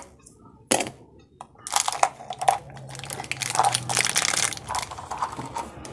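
Clear plastic wrap crinkling and crackling as a strip of cellophane-wrapped modelling clay sticks is pulled out of a plastic tub, after a single sharp click just under a second in.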